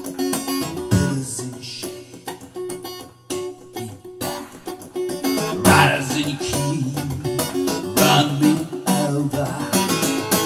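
Background music: an instrumental passage of plucked and strummed acoustic guitar.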